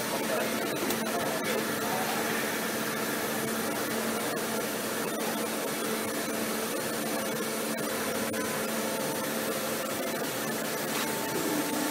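Three-axis CNC vertical milling machine running with a steady whirring hum as its axes travel back to the home position.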